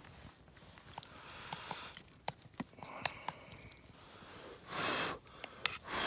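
A few light clicks, then Chicken Ramen instant noodles being slurped in several short bursts about two-thirds of the way in and again near the end.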